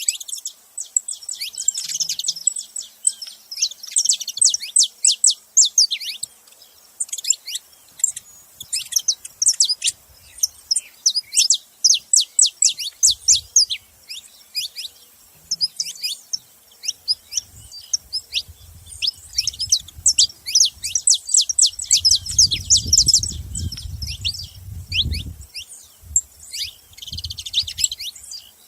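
Saffron finches chirping together in a near-continuous stream of quick, high, down-slurred notes, broken by brief pauses. A low rumble sits under the calls for several seconds past the middle.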